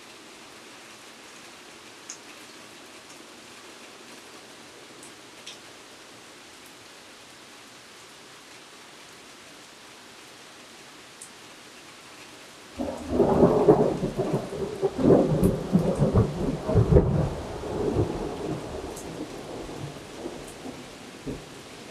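Steady rain hiss with a few faint drips, then a little past halfway a clap of thunder breaks into a loud, rolling rumble that goes on for several seconds and slowly fades.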